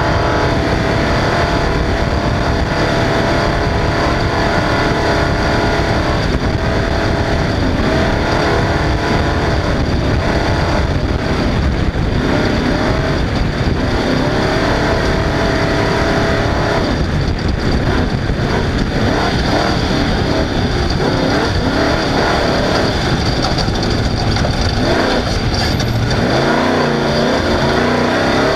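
Off-road race car at speed: the engine running hard under a steady loud rush of wind, tyre and chassis noise, its pitch holding for stretches and swinging up and down near the end as the throttle changes.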